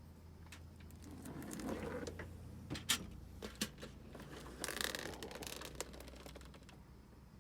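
Scattered clicks, taps and rustling from tools being handled, with a sharp click about three seconds in and a longer scraping rustle near five seconds.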